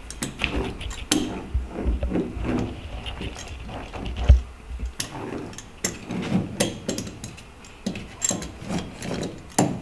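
A small hand roller pressing foil-backed sound deadening mat onto a car's sheet-metal floor pan: irregular clicks, taps and scrapes as the edges are worked down tight, with a few low thumps, the loudest a little past the middle.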